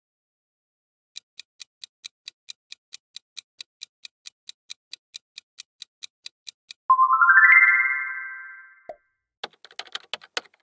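Countdown-timer sound effect: quick even ticks, about four a second, for roughly five and a half seconds, then a bright rising chime of stepped notes as time runs out. Near the end a short burst of keyboard-typing clicks.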